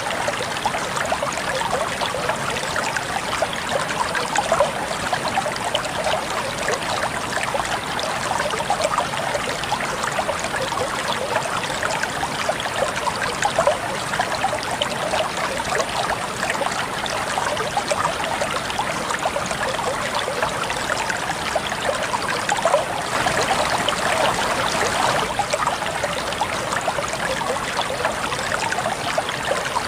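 Flowing water, a steady dense mix of small splashes and trickles, swelling slightly for a couple of seconds about three-quarters of the way through.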